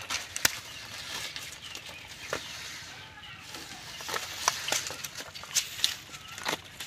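Irregular rustles and sharp slaps on dry bamboo leaves from live fish flopping in a nylon cast net and hands handling the net.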